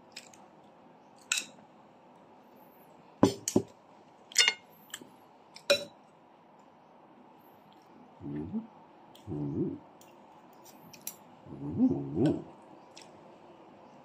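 Metal spoon and fork clinking and scraping against a plate as food is scooped, in sharp separate clinks over the first six seconds. Later come three short, low voice-like sounds from the eater between bites, about two seconds apart.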